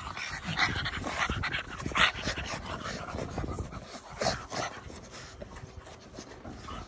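Pugs breathing noisily and snuffling close up at a hand: a string of short rough breaths and snuffles, with louder ones about two seconds in and again just after four seconds, quieter toward the end.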